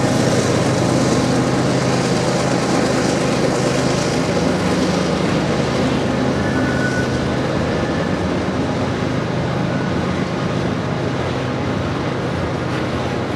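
Loaded coal hopper cars rolling slowly past, with a steady wheel and truck rumble, over the low drone of the lead GE Evolution-series diesel locomotives working at full throttle. The drone fades slowly, and a brief faint squeal comes about halfway.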